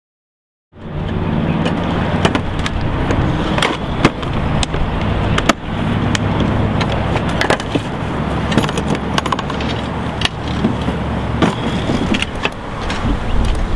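Hand tools clattering as they are packed into plastic tool cases, with many sharp clicks and knocks, over a steady low rumble.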